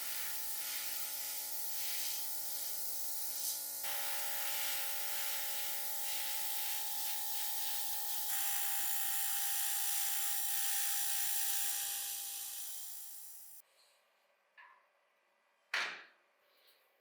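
Small handheld electric power tool running steadily, its motor giving a hum under a strong high hiss, shifting pitch slightly twice; it then stops, followed by a few light clicks and one sharp tap.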